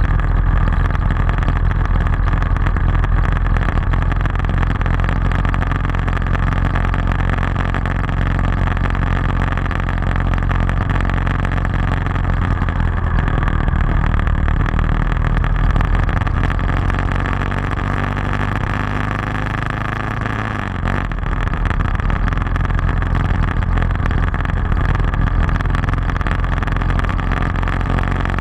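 Motorcycle engine running steadily under way, with wind and road rush over it. The engine note drops and changes about twenty seconds in, then steadies again.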